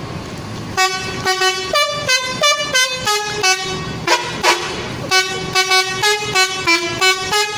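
Indonesian telolet bus horn playing a quick melody of short toots on several different pitches. It starts about a second in.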